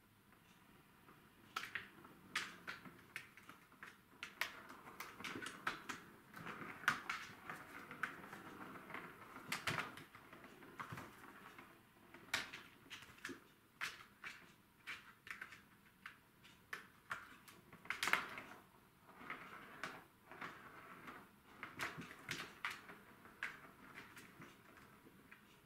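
Plastic ball rolling around a Catit Senses Super Roller Circuit track as a cat bats at it, with irregular clicks and knocks of ball and paws against the plastic, starting about a second and a half in.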